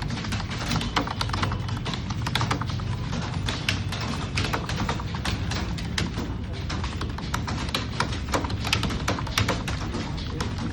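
Computer keyboard being typed on quickly: irregular keystroke clicks, several a second, over music in the background.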